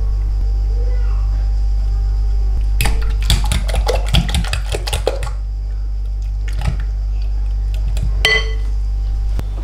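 A metal fork whisking eggs in a glass bowl: a quick run of clinks against the glass for about two seconds, then a couple of single taps, the last ringing briefly. A steady low hum runs underneath.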